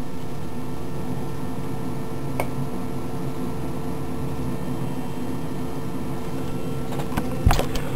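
A steady mechanical hum with a faint hiss, with one sharp click about two and a half seconds in and a few clicks near the end.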